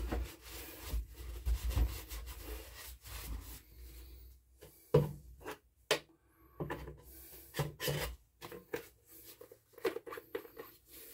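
Hands wiping and handling a chainsaw's plastic housing with a rag on a wooden bench: rubbing and scuffing, with a sharp knock at the start and scattered knocks and clicks later as things are moved about.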